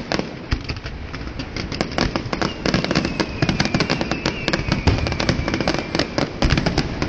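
Fireworks display: a dense, rapid crackling of many small pops mixed with deeper booms. A faint whistle slowly falls in pitch through the middle.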